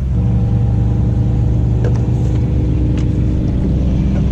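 Small outboard motor running steadily at low throttle, its pitch edging up right at the end.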